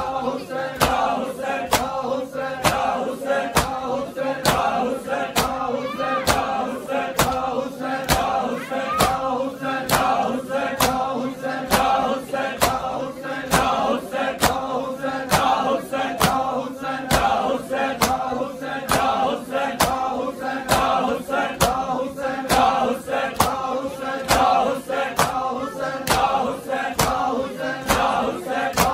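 A group of men chanting a noha in unison over a crowd, with a steady rhythm of sharp slaps about twice a second from hand-on-chest beating (matam).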